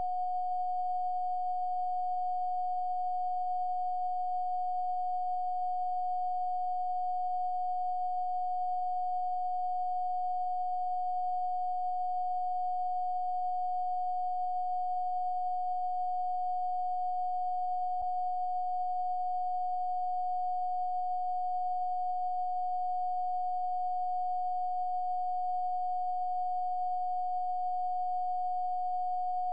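A steady, unchanging pure sine tone of about 729 Hz, with one faint click about two-thirds of the way through.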